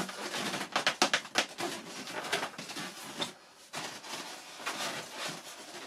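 Foam wing and fuselage of an RC model plane being handled and pushed together, with servo wires pulled through: irregular scraping and rubbing with sharp clicks, pausing briefly about three and a half seconds in.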